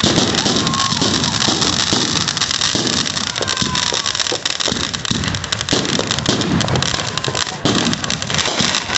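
Consumer fireworks going off: a ground fountain hissing and crackling steadily, with aerial shells launching and bursting overhead in repeated heavy thumps about every half second to second.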